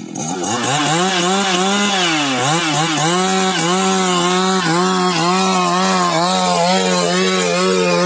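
Stihl MS 382 two-stroke chainsaw at high revs cutting lengthwise through a squared timber. The engine pitch sags under load around two seconds in, then holds steady in the cut with small dips.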